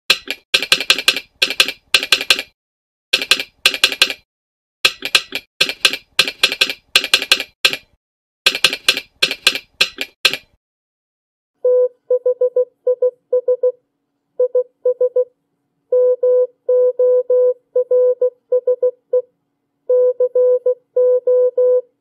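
A telegraph sounder clicking out 'This is Morse code' in American Morse: sharp clicks in quick groups for about ten seconds. Then, after a short silence, a CW oscillator beeps the same phrase in International Morse as a steady mid-pitched tone keyed in short and long pulses.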